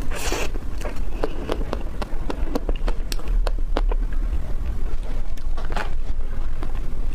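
Close-miked eating sounds from a soft, creamy ice cream dessert: a wet bite at the start, then chewing with many small mouth clicks and lip smacks, and another mouthful near the end.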